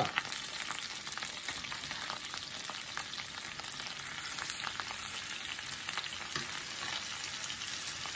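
Chicken pieces frying in hot garlic butter in a cast-iron skillet: a steady sizzle with many small pops and crackles as they are laid in.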